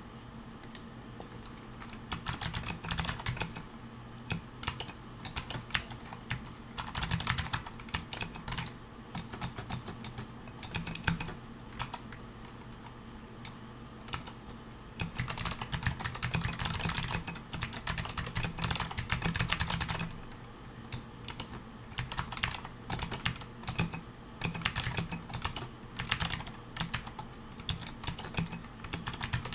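Typing on a Pearl 40% mechanical keyboard with clicky Amber Alps switches: quick runs of sharp key clicks, broken by short pauses.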